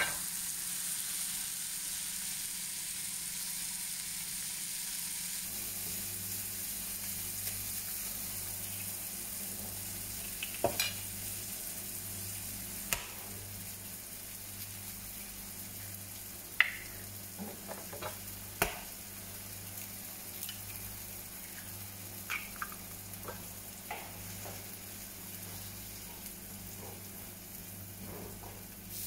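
Chopped tomatoes and green pepper sizzling in oil in a frying pan, the sizzle slowly fading. A handful of sharp taps of a wooden spatula against the pan are heard as the food is stirred.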